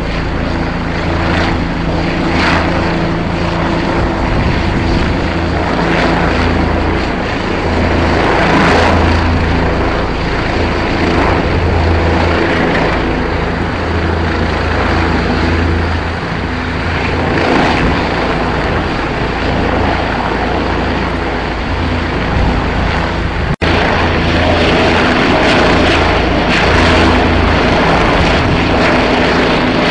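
Steady, loud drone of a helicopter's turbine engine and rotor, with a brief dropout about three-quarters of the way through.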